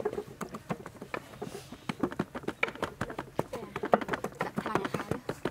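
Hands patting and pressing flour onto whole raw red fish in a metal tray. The sound is a quick, irregular run of soft pats and taps.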